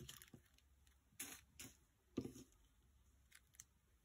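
Small plastic zip-lock bags of diamond painting drills being slid and shuffled by hand: a handful of faint, short crinkles and taps, the loudest just after two seconds in.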